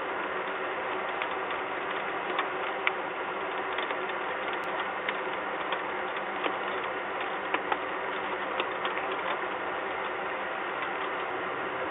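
Rain heard through an outdoor webcam microphone: a steady hiss with irregular sharp ticks of raindrops striking hard surfaces.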